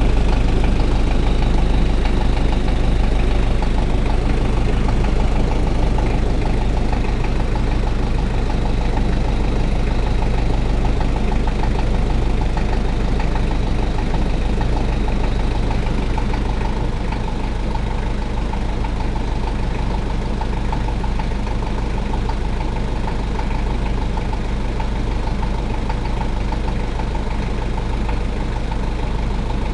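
Toyota 1KZ-T 3.0-litre four-cylinder turbodiesel idling steadily with a fast, even rattle. It is recorded to show a noise in the engine that the owner hears but does not name.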